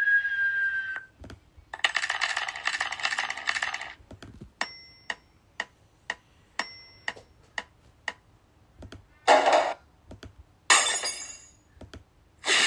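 A string of short sound effects: a whistle tone that ends about a second in, a buzzing rattle lasting about two seconds, a run of sharp clicks, two of them with a small ringing tone, and then three short noisy bursts near the end.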